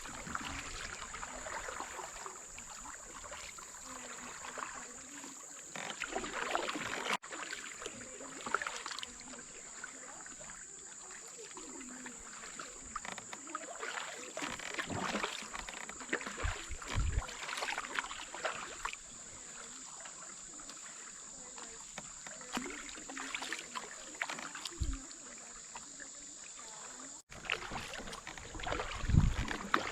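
Water splashing and lapping around a kayak on a river, in irregular surges.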